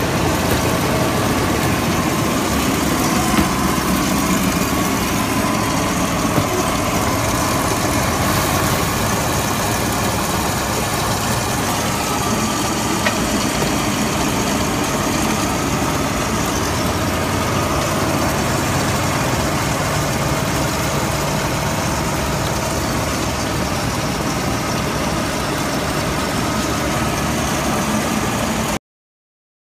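Waste-textile fiber opening machines running: a loud, steady machine noise with a faint steady hum, cutting off suddenly near the end.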